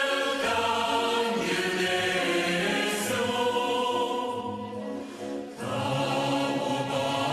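Background choral music: a choir singing long held chords, which fade briefly about five seconds in and then come back.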